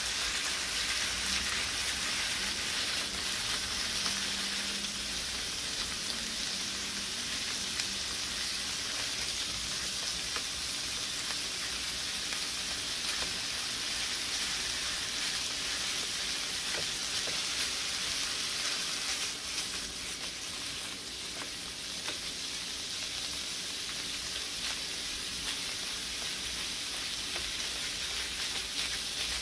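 Ground beef sizzling steadily in a hot nonstick frying pan as it browns, with light scraping and tapping from a slotted spatula breaking up the meat.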